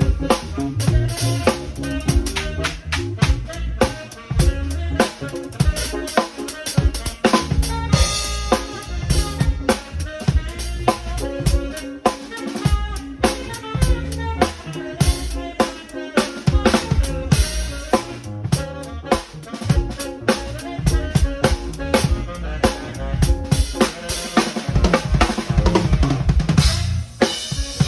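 Drum kit being played through a continuous groove: steady bass drum and snare hits with cymbals, building to a denser cymbal wash near the end.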